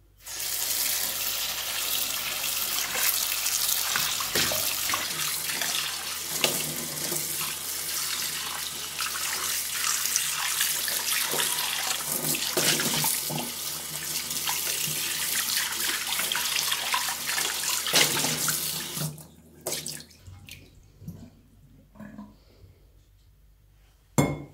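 Kitchen tap running hard onto a stainless steel pan and into a steel sink as the pan is rinsed and rubbed by hand. The water stops about three quarters of the way through, leaving a few light knocks and a sharp knock near the end.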